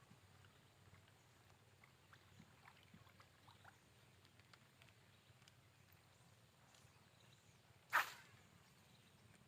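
Near silence with faint scattered ticks, broken about eight seconds in by one brief, sharp noise that dies away within half a second.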